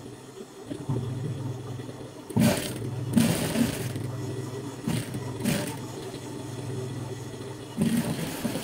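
Electric sewing machine stitching in several short runs over a steady low motor hum.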